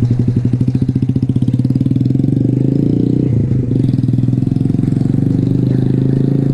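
Motorcycle engine idling steadily close by: an even, low hum with a fast, regular pulse.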